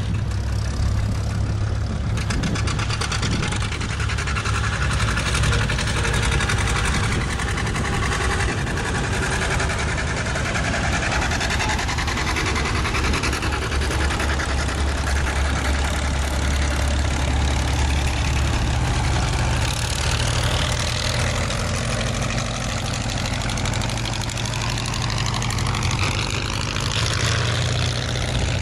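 Vintage farm tractors driving past one after another, a green John Deere followed by a red International Harvester and a Farmall, their engines running steadily. The low engine note shifts as each tractor comes by.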